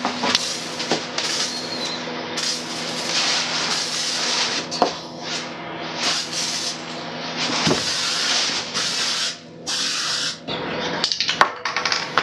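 Aerosol can of primer spraying in a series of short hissing bursts with brief pauses between, as light coats go onto plastic motorcycle fairing panels; a few light knocks fall between the bursts.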